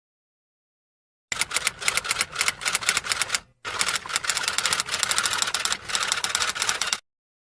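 Rapid clatter of typing keystrokes, starting about a second in and running in two bursts with a brief break a little past three seconds.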